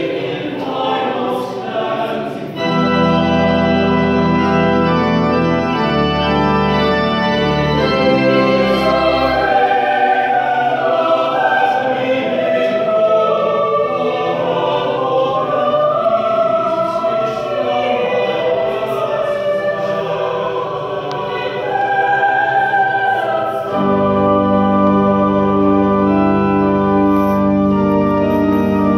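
Choir singing an anthem with church organ accompaniment, the voices and organ chords sustained throughout. Deep organ pedal notes sound for a few seconds near the start and again in the last few seconds.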